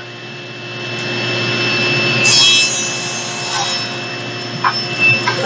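SawStop table saw running with its blade ripping through 1/2-inch MDF. The steady whine of the running saw is joined by the noise of the cut, which builds from about a second in and is loudest from a little past two seconds. A few short knocks come near the end.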